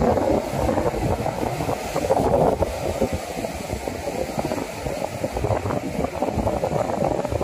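Wind buffeting the microphone: an irregular low rumbling noise with no distinct events.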